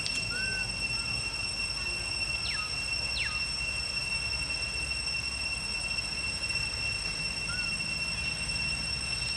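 A steady high-pitched insect drone holding one unchanging pitch, over a low rumble. A few faint short chirps and two quick falling whistles come in, around two and a half and three seconds in.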